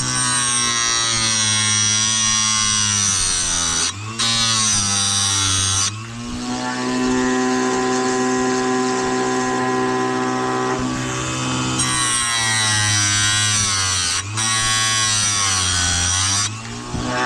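Electric chainsaw chain sharpener's grinding-wheel motor running and grinding the cutters. Its hum sags in pitch and recovers several times as the wheel is brought down on each tooth, with a few brief drops in level between passes.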